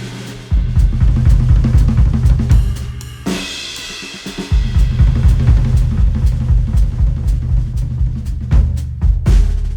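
Recorded instrumental music with a drum kit (kick, snare, hi-hat and cymbals) over a heavy bass line; the bass drops out for about a second a little after three seconds in, then the full beat comes back.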